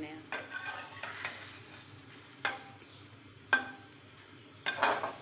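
A metal spoon stirring and scraping meat pieces around an aluminium wok over a gas flame, with the meat frying under it. Sharp clinks of the spoon against the pan about two and a half and three and a half seconds in, the second the loudest, and a clattering scrape near the end.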